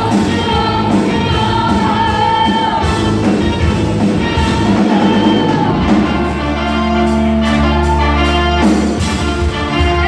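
Spanish-language Christian worship song performed by singers with a band of keyboard and drums, with a steady beat. About six seconds in, a low chord is held for a few seconds under the voices.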